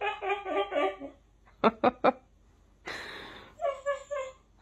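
A person laughing and a husky copying the laugh with pulsed, yodel-like vocal bursts, heard in two bouts, one at the start and one near the end. Three sharp clicks fall in between.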